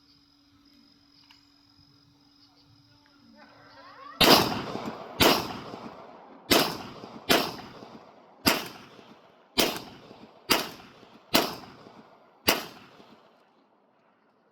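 Nine gunshots at a firing range, fired one at a time at an uneven pace of roughly one a second, each with a short echoing tail, starting about four seconds in.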